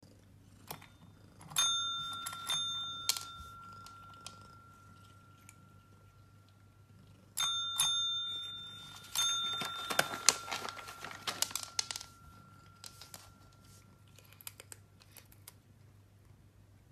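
Pet training call bell (counter-style service bell) pressed by a cat's paw: bright dings that ring on long after each strike, about three in quick succession near the start and three more around the middle. A flurry of clicks and taps follows for a couple of seconds.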